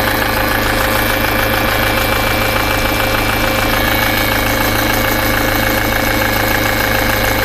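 Citroen C5 X7's DW10CTED4 2.0 HDi four-cylinder diesel running steadily, with a high-pitched buzz over it. The buzz is a fault noise that appears once the engine has been revved to 3–4 thousand rpm and stays until shutdown; its exact source is unknown.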